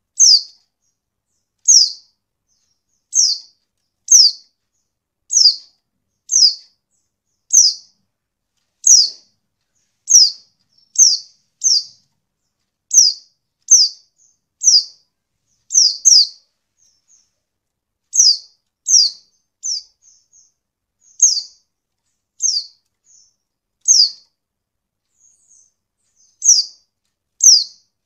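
Female white-eye (pleci) calling: short, high chirps that each drop quickly in pitch, repeated about once a second with a couple of brief pauses. It is a female call used to lure male white-eyes into answering and singing.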